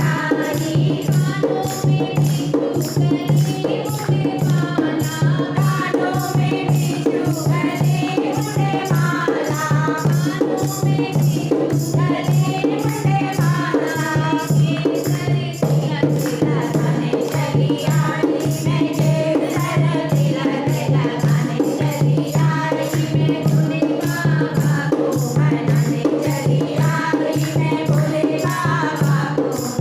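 Hindi devotional bhajan being performed as kirtan: voices singing a melody over a steady low drone, with a regular beat of shaken or jingling hand percussion.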